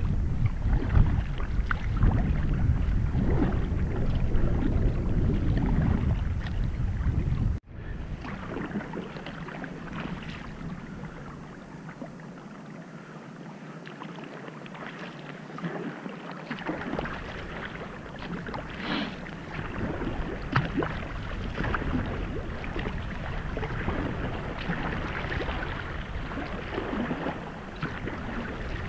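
Wind rumbling on the microphone for the first several seconds; then, after an abrupt cut, a kayak paddle dipping and splashing through river water with a steady run of drips and small splashes.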